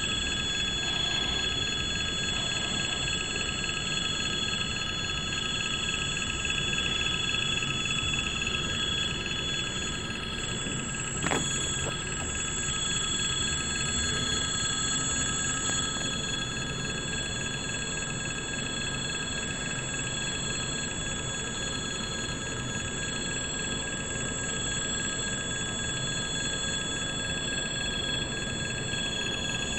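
Railway level-crossing warning bell ringing steadily, over the low rumble of freight wagons rolling past. There is a single sharp knock about eleven seconds in.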